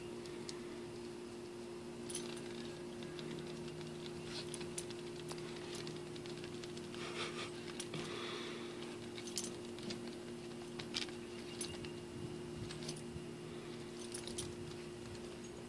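A small dog's collar tags jingling and claws clicking as it noses and paws about on a patio rug: scattered light clicks and jingles, with a short rustle about seven seconds in.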